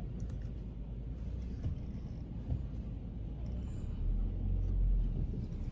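Low, steady rumble of a car's engine and tyres, heard from inside the cabin as it rolls slowly, growing louder about four seconds in.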